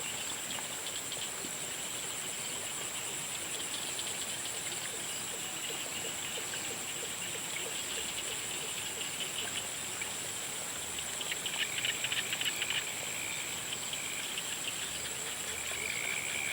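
Evening chorus of frogs and insects: a steady high-pitched insect trill with rapid pulsing frog calls beneath it, which grow louder for a couple of seconds past the middle. A single steady note joins near the end.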